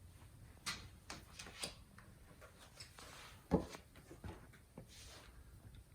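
Quiet room with a few faint clicks and a soft knock about three and a half seconds in.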